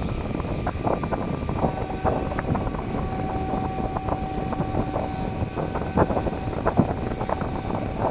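ATP JET GTCM-1512 pattern-cutting machine running: a steady rushing machine noise with a thin steady whine that comes and goes, and scattered sharp clicks and taps.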